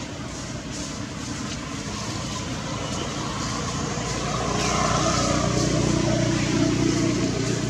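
A motor vehicle's engine passing by, growing louder over a few seconds, loudest around five to seven seconds in, then easing off near the end.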